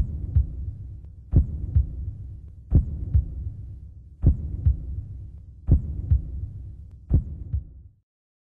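Heartbeat sound effect: six slow double thumps, lub-dub, repeating about every one and a half seconds over a low steady hum. It cuts off suddenly near the end.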